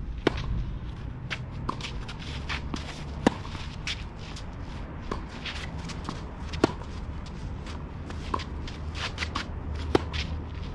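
Tennis rally on a clay court: racket strikes on the ball about every one and a half to two seconds, alternating loud and faint as the near and the far player hit. Shoes scuff and slide on the clay between the shots.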